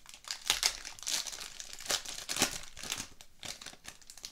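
Foil wrapper of a hockey trading-card pack being torn open and crinkled by hand, an irregular string of sharp crackles.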